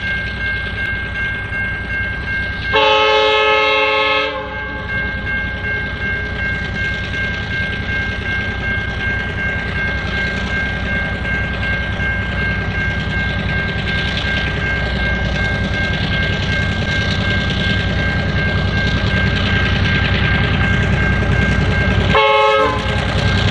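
Victorian Railways Y-class diesel locomotive sounding its horn: a chord held for about a second and a half a few seconds in, then a short toot near the end. Underneath, the running train's rumble gets steadily louder as it approaches.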